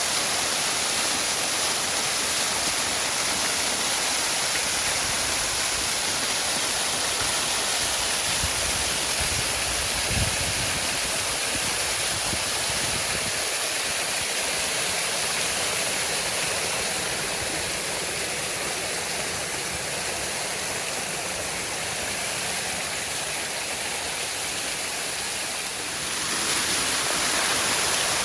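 Waterfall, a steady rush of falling water. It dips slightly in the latter half and jumps abruptly back to full level near the end.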